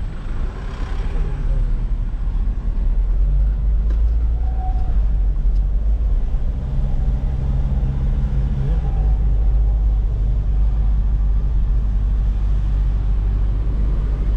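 A car on the move: a steady low rumble of engine and road noise.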